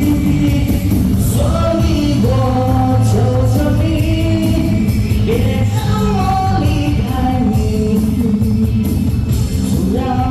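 A pop song played loud through a hall's sound system, a voice singing a melody over a full band accompaniment.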